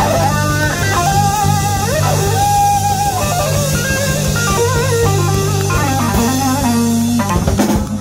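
Live rock band playing: an electric guitar lead with bent notes over bass guitar and drum kit, with a run of sharp hits near the end.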